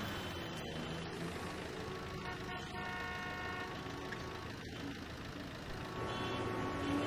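City street traffic with car horns sounding several times over a steady rumble of traffic.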